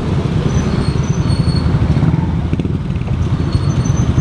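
Cruiser motorcycle engine running steadily at low speed in slow traffic, a dense low rumble with a fast pulse. A few short, high-pitched squeaks sound over it.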